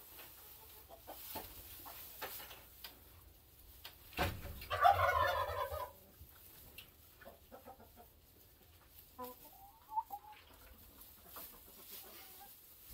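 A flock of laying hens clucking, with one loud, drawn-out squawk about four seconds in, just after a knock, and a few shorter calls later on.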